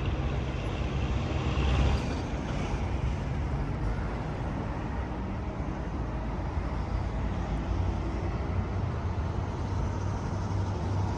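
Steady low rumble of a large engine running, over a broad noise haze, swelling slightly about two seconds in.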